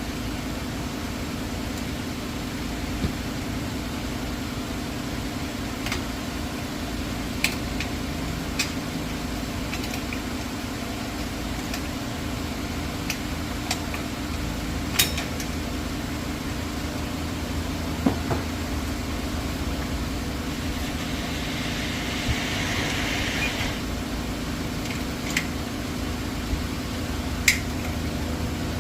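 Scattered sharp metallic clinks and taps of hand tools on car brake parts, over a steady low hum, with a short hissing scrape a little past the middle.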